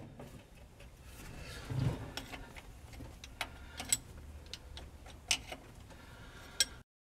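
A few sharp metallic clicks and taps as a hand handles parts on the transmission's torque-tube ball housing, with a duller knock about two seconds in. The sound cuts out just before the end.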